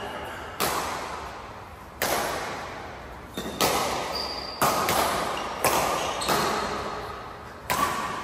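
Badminton rally: rackets striking the shuttlecock again and again, each sharp hit followed by a long echo in a large hall. A few short high squeaks, likely shoes on the court, come between the hits.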